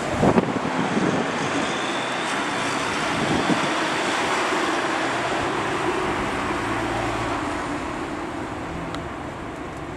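Steady rushing outdoor noise of wind and road traffic ahead of a thunderstorm, with a few short knocks about half a second in, easing off slightly near the end.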